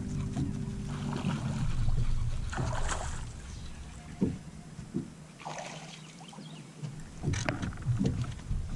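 Electric trolling motor humming, stopping about a second in, then water splashing and a few sharp knocks as a hooked fish is reeled to the boat and swung out of the water.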